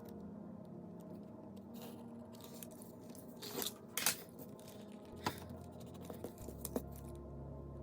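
Red marker scratching across paper in a few short strokes near the middle, over faint steady background tones.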